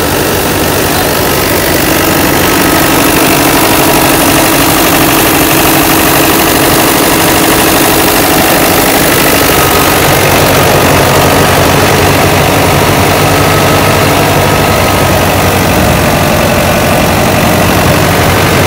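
Tractor engine running steadily, driving a wheat thresher that hums along with it. The sound gets a little louder about two seconds in.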